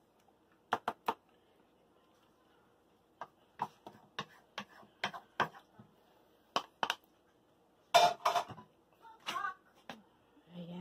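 Wooden spatula tapping and scraping against a disposable aluminium foil pan while spreading meat sauce over a lasagne layer: irregular sharp taps, the loudest pair about eight seconds in.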